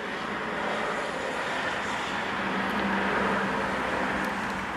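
A passing vehicle on a nearby road, a steady rush of engine and tyre noise that swells gradually and eases off again near the end.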